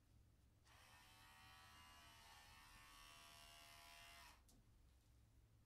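Electric pet hair clipper running faintly and steadily for about three and a half seconds. It is switched on about a second in and cut off abruptly near the end.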